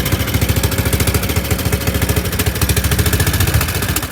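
Small engine running steadily, with a rapid, even beat under a loud hiss. It cuts off suddenly at the end.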